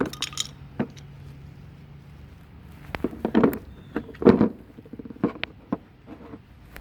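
Irregular knocks and clicks, with two heavier thumps around the middle, over a low steady hum that stops about a third of the way in.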